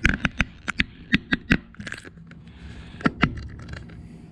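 Wooden joint pieces knocking and clacking together as they are handled and fitted: a quick run of about eight sharp knocks in the first second and a half, light scraping, then two more knocks about three seconds in.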